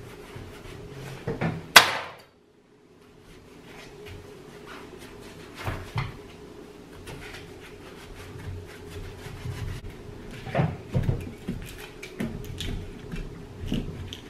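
Kitchen knife cutting and scraping stringy pulp off the underside of a pumpkin lid, with scattered knocks and clicks of the knife and lid against the table. A sharp click comes about two seconds in, followed by a brief drop to silence.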